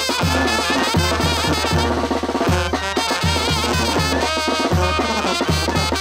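Tamborazo band playing: clarinet, trumpet and trombone carry the melody over a snare drum and a steady bass drum beat.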